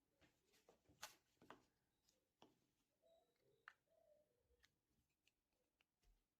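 Near silence: room tone with a few faint, scattered clicks and light taps.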